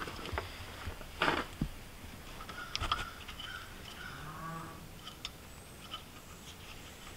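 Light clicks and knocks of gloved hands working the wiring and metal fittings under the side panel of a John Deere 7200 tractor, a few sharp ones scattered through. About four seconds in there is one short low call lasting under a second.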